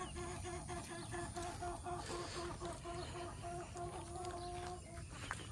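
A chicken clucking in a steady run of short clucks, about four a second, ending in a longer drawn-out note near the end.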